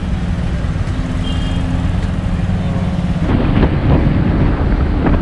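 A motorcycle's engine runs steadily while riding, with wind rushing over the microphone. About three seconds in the rushing noise gets rougher.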